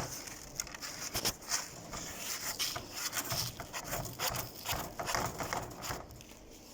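Irregular rubbing and scraping with small knocks and rustles from cleaning up spilled cat litter and droppings, dying down about six seconds in.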